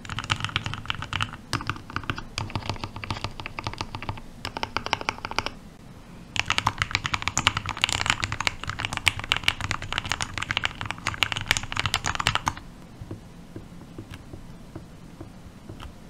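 Typing on a Libra Mini, a 40% gasket-mount custom mechanical keyboard with lubed 62 g TTC switches, PBT DSA keycaps and a layered acrylic case: a dense, poppy clatter of keystrokes. There is a brief pause about five and a half seconds in, then faster typing, which stops about three and a half seconds before the end.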